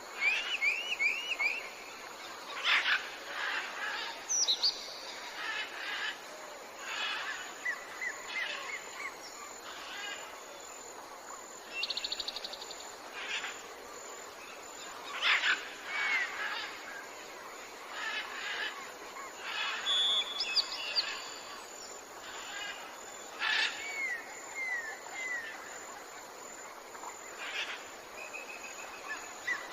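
A mix of songbirds chirping and whistling: short repeated notes, rising and falling whistles and a brief trill about twelve seconds in, over a steady background hiss of natural ambience.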